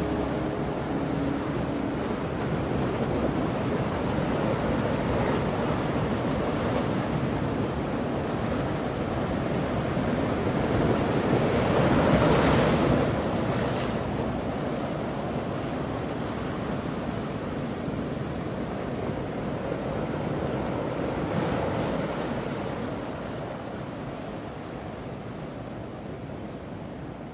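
Ocean surf: waves breaking and washing in a steady rush that swells about twelve seconds in and again a little after twenty seconds, then fades away near the end.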